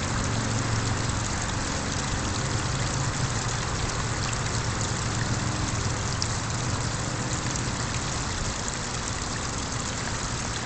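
Small garden pond waterfall splashing steadily, with a low steady hum underneath.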